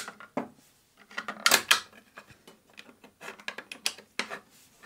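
3D-printed plastic blast-gate disc, fitted with magnets, clicking and clattering against its plastic frame as it is set in by hand. There is a sharp click at the start, a cluster of clacks about one and a half seconds in, then lighter scattered ticks.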